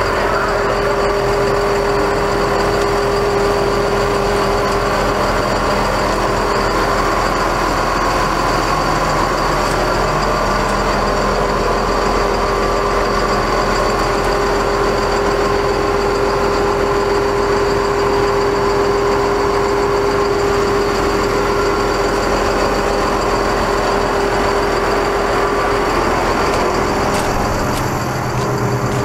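Cummins ISB 5.9L diesel engine of a Ford F650 dump truck idling steadily, with a steady hum held over the engine noise.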